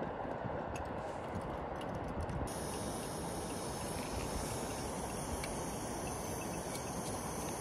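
Backpacking gas stove burning with a steady hiss, just lit. About two and a half seconds in the hiss turns brighter and stays that way.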